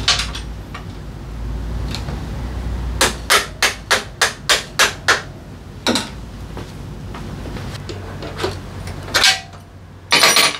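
A hand hammer strikes in a quick run of about eight blows, roughly three a second, followed by a few single knocks and a brief clatter of metal tools near the end.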